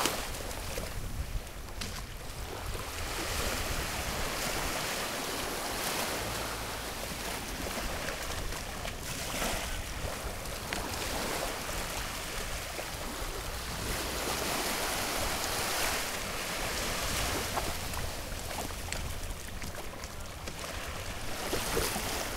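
Gentle surf washing up a sandy beach and drawing back, swelling and easing every few seconds, with wind rumbling on the microphone.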